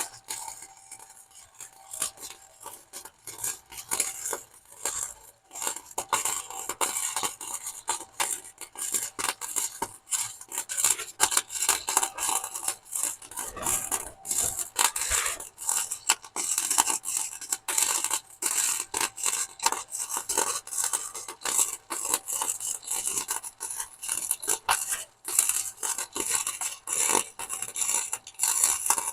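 Arc welding: a steady, irregular crackle and sputter as a bead is laid on a steel motor mount bracket.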